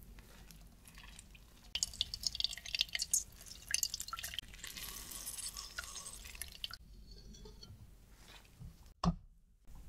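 Lemon half squeezed by hand, its juice dripping and trickling into a small glass jug in a dense patter of drops that lasts about five seconds. A single sharp tap near the end.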